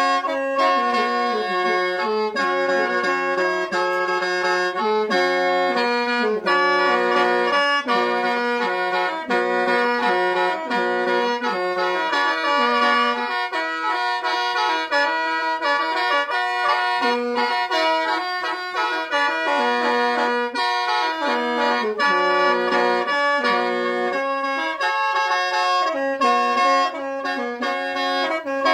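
Khaen, the Lao bamboo free-reed mouth organ, being played: a continuous melody of shifting notes over a steady held drone.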